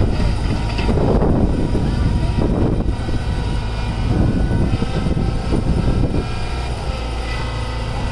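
Diesel engines running steadily: a Swaraj 744 FE tractor idling close by and a Tata Hitachi excavator working as it loads soil, with uneven louder rushes of engine and hydraulic noise as the excavator's arm moves.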